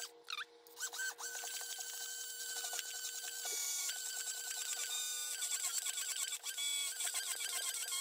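Stainless-steel immersion blender starts about a second in and runs steadily in a glass mason jar, with a faint whine over the motor. Warm melted butter is being blended into egg yolks to emulsify a butter mayonnaise.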